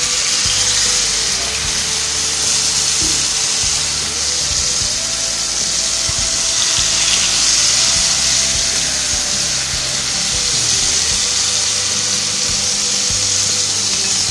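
Marinated fish fillets sizzling steadily as they fry in hot oil in a nonstick pan, with background music underneath.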